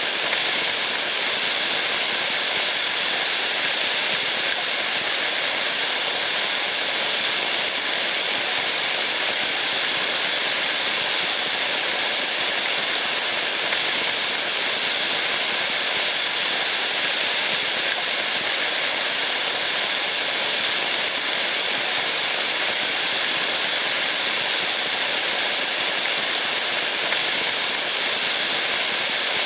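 Steady rain: an even, unbroken hiss, with no separate drops or gusts standing out.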